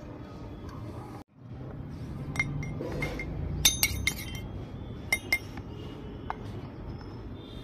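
Miniature steel toy frying pans clinking against each other: several light, ringing metallic clinks, a cluster a little under four seconds in and two more about a second later.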